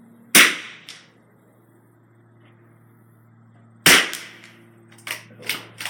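Two .22 LR rifle shots about three and a half seconds apart, each a sharp crack with a short ringing tail. A few quieter knocks follow near the end.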